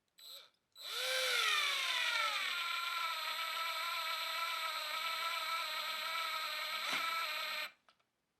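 Cordless drill motor: a short blip, then a long steady whine that drops in pitch as the bit or screw bites into the wood, then runs steadily under load until the trigger is released near the end.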